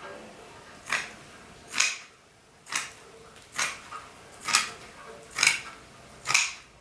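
Fabric scissors cutting through sequined fabric with one snip about every second, seven cuts in an even rhythm.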